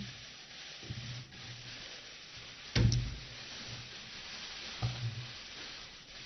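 Steady low hiss of room and microphone noise, broken by a short, louder breathy sound about three seconds in and a fainter one about five seconds in.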